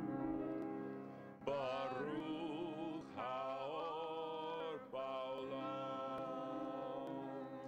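Grand piano playing a slow song with a voice singing over it. A held chord opens, and the wavering sung phrases come in about a second and a half in.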